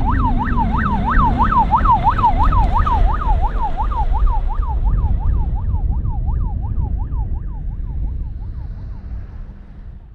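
Ambulance siren on a fast yelp, its pitch sweeping up and down about four times a second over a steady low rumble, fading away as the ambulance drives off.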